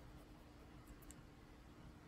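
Near silence: room tone with a faint steady hiss, and a couple of very faint high ticks about a second in.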